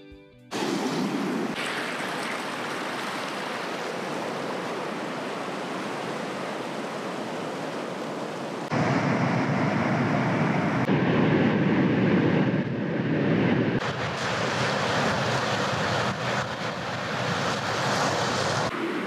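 Ocean surf breaking and washing in, a steady rushing noise with some wind on the microphone. It gets louder and deeper for several seconds in the middle, starting and stopping abruptly.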